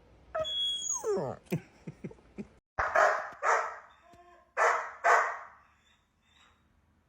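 Dog barking: two pairs of loud barks, about a second and a half between the pairs. Before them, a few high cries that slide down in pitch.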